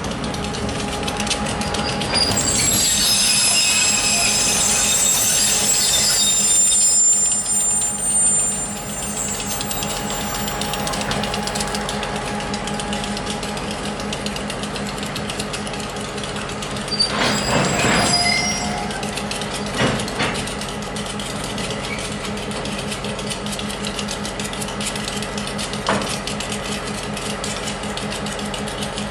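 EMD SW1001 switcher locomotive's eight-cylinder diesel engine running steadily at low speed as it crosses a steel truss bridge with gondola cars, with its wheels squealing from about two seconds in to about eight seconds in. There are loud metallic clanks and clatter about seventeen and twenty seconds in and again near the end.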